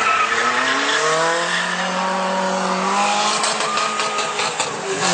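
Drag-race cars launching from the start line and accelerating hard, the engine note climbing in pitch, falling back about a second in as it shifts, then climbing again.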